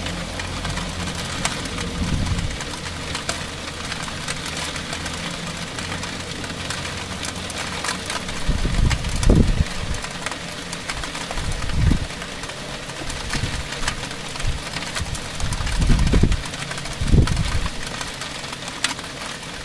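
Heavy rain shower falling on roof tiles: a steady hiss with many small drop ticks. Under it runs a low rumble, steady at first, then rising in several short swells in the second half.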